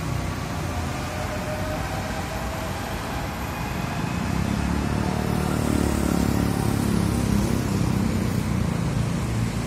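Steady road traffic noise on a busy multi-lane street, swelling louder about halfway through as vehicles pass close by.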